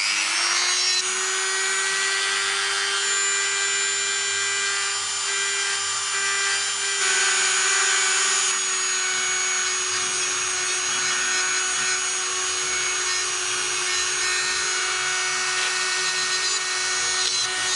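Hand-held rotary tool spinning up, then running with a steady high whine as it grinds out a hole in a resin moulding, and winding down near the end.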